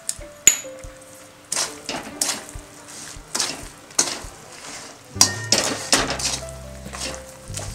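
Steel spoon scraping and clinking against a metal pan while stirring through sticky jaggery syrup with chopped nuts and coconut. The strokes are irregular and come faster after about five seconds.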